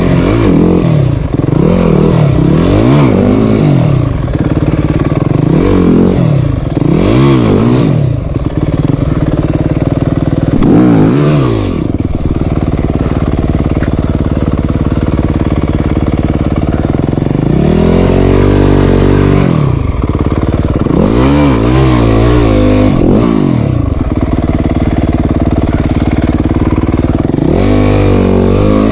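Yamaha YZ250F dirt bike's 250 cc single-cylinder four-stroke engine running and revving up and back down in short bursts, over and over, with stretches of steady idling between the bursts in the middle and near the end.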